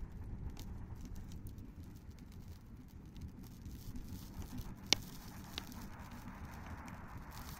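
Wood campfire crackling, with scattered small snaps and one sharp pop about five seconds in, over a steady low rumble.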